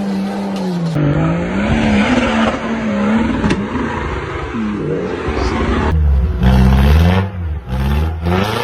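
Off-road 4x4 engines revving hard under load, the pitch repeatedly rising and falling. About six seconds in the sound switches abruptly to a deeper, heavier engine rumble.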